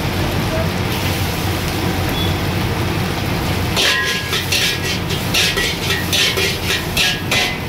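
Steel ladle scraping and clanking against a large iron wok as eggs and vegetables are stir-fried. The strokes come quickly, about three a second, from about four seconds in, over a steady low rumble.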